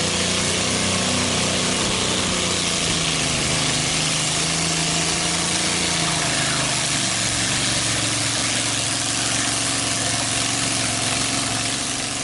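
Modified lawn tractor engine running hard under load while pulling the weight sled, a loud steady note whose pitch sags slightly a few seconds in.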